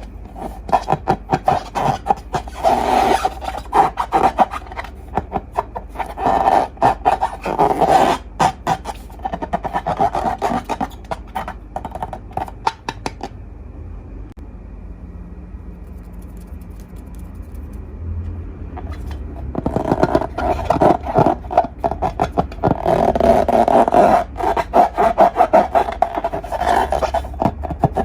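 Slime being squeezed and worked by hand, with dense runs of wet crackling clicks. It pauses for several seconds about halfway through, then starts again.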